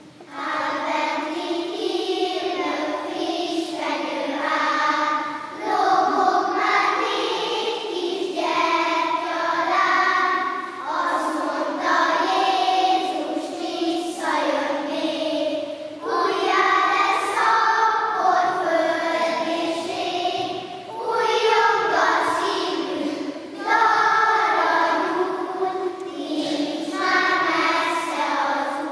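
Children's choir of young schoolchildren singing a song together in a large church, in sustained phrases with brief breaths between them every few seconds.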